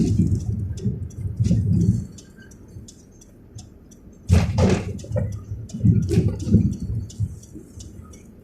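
Storm sounds: scattered raindrops ticking while gusts of wind buffet the microphone in uneven surges, with a louder gust or thump about four seconds in.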